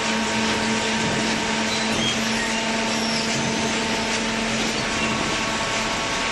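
Hydraulic baler's power unit running steadily, an electric motor and hydraulic pump giving a constant hum and whine over a broad hiss as it presses cardboard cartons.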